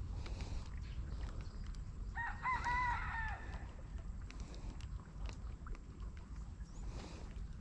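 A rooster crowing once, a wavering call of about a second starting about two seconds in, over a steady low rumble of wind on the microphone.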